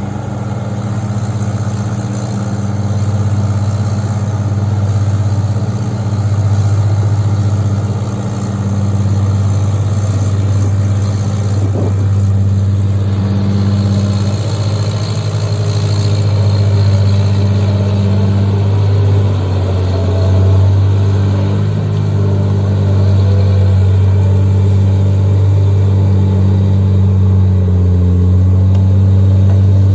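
Excavator's diesel engine running steadily as it works, a continuous drone whose pitch shifts slightly as the load changes.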